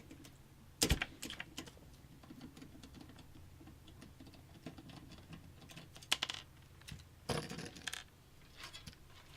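Light clicks and knocks from handling a computer case and its screws. There is a sharp click about a second in and a few more scattered taps later on.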